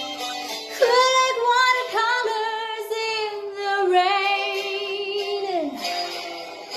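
Female voice singing long held notes with vibrato over sustained backing chords, the last note gliding down near the end.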